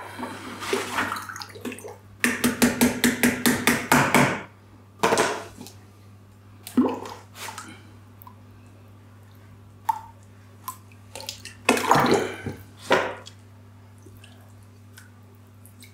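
Liquid ceramic glaze sloshing and splashing in a bucket and a ceramic bowl as the glaze is worked by hand and poured. There is a quick run of rapid splashing strokes about two seconds in and a few shorter splashes later. A steady low hum runs underneath.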